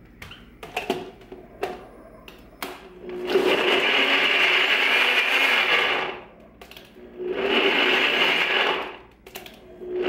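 NutriBullet blender grinding coconut meat with a splash of coconut water, run in three pulses of a few seconds each as the cup is pressed down and released. A few sharp clicks come first, as the cup is seated on the base.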